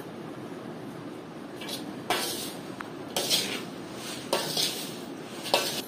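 Steel spoon clattering and scraping against a large steel bowl as cut raw mango pieces are tossed with dry spice mix. The strokes come four times, about a second apart, starting about two seconds in.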